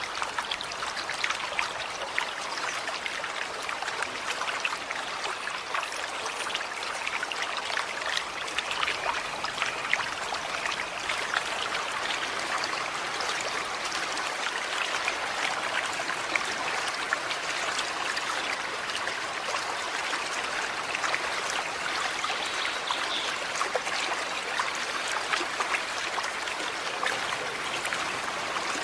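Small forest stream running over stones, a steady rush of water with constant fine trickling and splashing.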